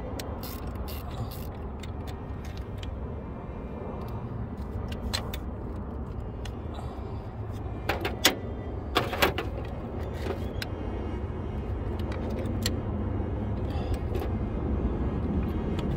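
Small metallic clicks and clinks of a socket ratchet and wrench on a car battery's terminal clamp as it is loosened, with a few louder clinks about halfway through, over a steady low rumble.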